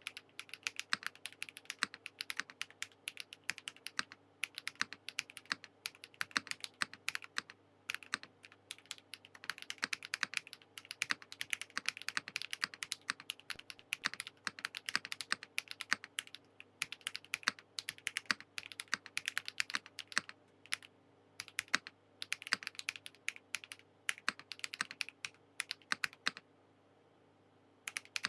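Fast typing on a Transition Lite TKL mechanical keyboard with HMX Raw switches, Keykobo keycaps, an aluminium plate and full foam: a rapid, uneven stream of keystrokes with a few brief breaks and a pause of about a second and a half near the end.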